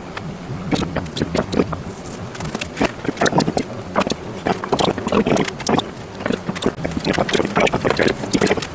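Rapid, irregular clicks and knocks of hands and a tool working on a plastic alarm clock radio while taking it apart, over a steady low hum.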